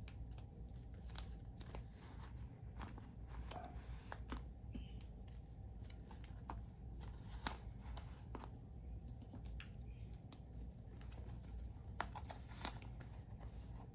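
Photocards being slid in and out of the clear plastic pockets of a binder page: scattered light scrapes, rustles and small taps of card against plastic film, over a steady low hum.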